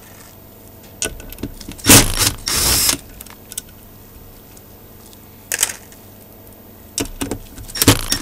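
Metal clinks and clatters of screwdriver bits and tools being handled while a bit is changed: a loud clatter about two seconds in, a short rattle right after it, another near the middle, and a run of clicks near the end as the driver bit is set onto a screw.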